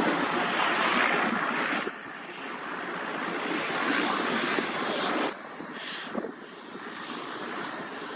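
Airbus A330 airliner noise heard on board: a steady rush of engine and air noise that drops suddenly about two seconds in and again about five seconds in.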